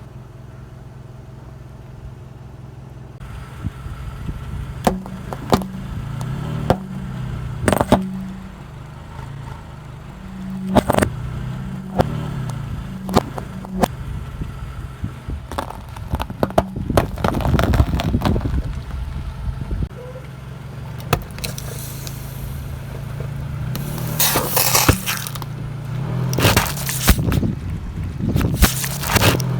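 A car's engine running at low speed as its tyre rolls over objects, with scattered sharp cracks and snaps. It ends in several bursts of crackling and crunching as things break under the wheel.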